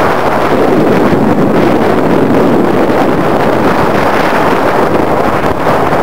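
Strong wind buffeting the camera's microphone: a loud, steady rush of noise.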